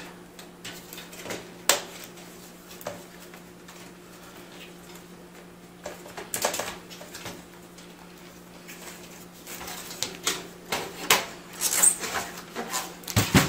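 Plastic clicking and rattling as the front panel of a PC case is pried off its clips: scattered clicks, a burst of clattering about six seconds in, and more clicks and knocks near the end. A faint steady low hum runs underneath.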